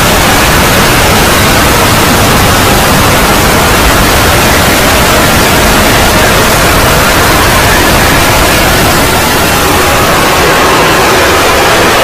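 Deliberately distorted, extremely loud "earrape"-style edited audio: a steady wall of harsh, static-like noise filling the whole frequency range, clipped near full volume.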